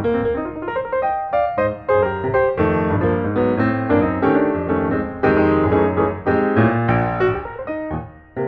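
Piano music, a continuous flow of struck notes and chords.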